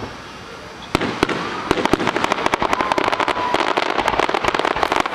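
Aerial fireworks going off. About a second in there is a sharp bang, and after it comes a dense run of rapid crackling pops.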